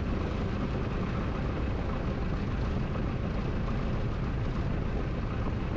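Steady cockpit noise of a Piper J-3 Cub with its engine at idle: a low engine drone mixed with rushing air, even and unchanging, as the plane comes down over a grass runway to land.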